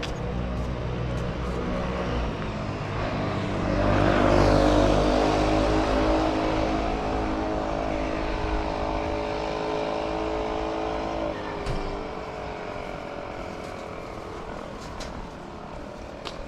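A motor vehicle's engine running close by on a city street, loudest about four seconds in and dropping away after about eleven seconds, over steady traffic noise.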